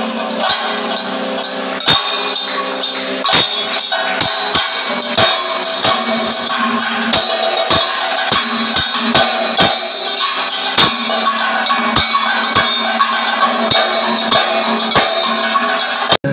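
Kathakali percussion ensemble playing: chenda and maddalam drums beating sharp strokes, irregular but roughly one or two a second, over a steady metallic ringing.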